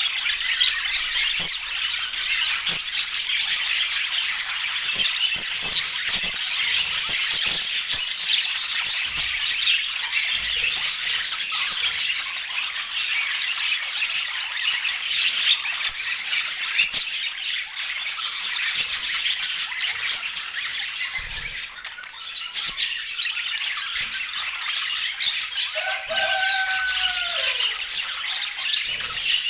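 Budgerigars chattering and chirping continuously in a dense warble of quick high chirps. Near the end one lower call slides down in pitch.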